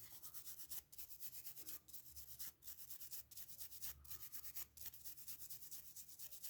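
Small brush scrubbing eraser crumbs off a switch's metal contacts: faint, quick rubbing strokes, about three or four a second.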